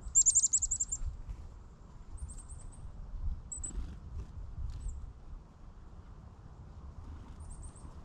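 Small songbird calls: a quick, loud run of about eight high, thin notes in the first second, then a few short, fainter runs of the same high notes.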